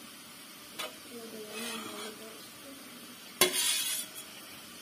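Perforated metal skimmer knocking and scraping against an aluminium pot while boiled pasta is scooped out of the water. There is a light click about a second in and a sharp metallic clink with a short rattle near the middle of the back half.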